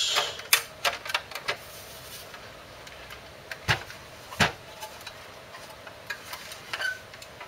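Metal case of a JVC XL-E34BK CD player knocking and clicking against the bench as it is tilted up and turned round by hand. A cluster of small clicks comes in the first second and a half, then two louder knocks near the middle and a few light ticks.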